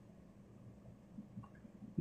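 Faint scratching and light ticks of a pen writing on a paper legal pad, over a low steady hum.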